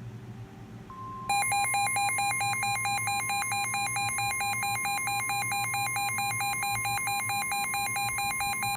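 NOAA Weather Radio's warning alarm tone, a steady high tone of about 1 kHz that comes on just under a second in. Its job is to signal that a warning is about to be read. From about a second and a half in, a loud electronic alarm warbles rapidly between two pitches over the tone, steadily and without pause.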